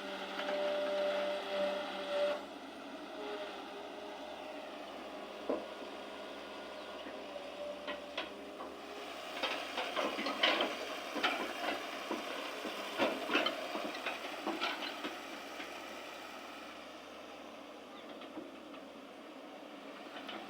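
Excavator running, with a steady whine for the first couple of seconds, then a run of sharp knocks and clanks from about nine to fifteen seconds in.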